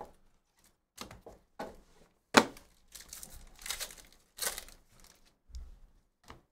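Foil wrapper of a Panini Court Kings basketball card pack being torn open and crinkled by hand, a string of short rips and rustles, loudest about two and a half seconds in.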